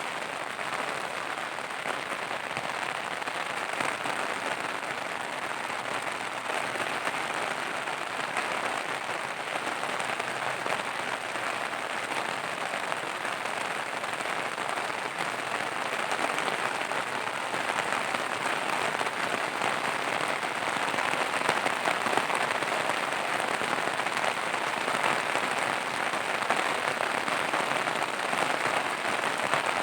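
Heavy rain falling in a steady, dense hiss, growing a little louder in the second half.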